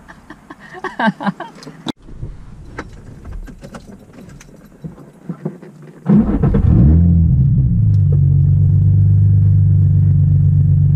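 2003 Infiniti G35's 3.5-litre V6 starting about six seconds in, flaring briefly after it catches, then settling into a steady, loud idle heard from inside the cabin. A few small clicks, like keys, come before the start.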